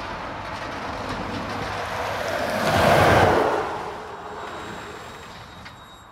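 Freight train wagons rolling over a rail overbridge with a steady low rumble as the tail of the train passes. About three seconds in, a road vehicle passes close by on the highway below: a swelling, fading rush of tyre noise that is the loudest sound.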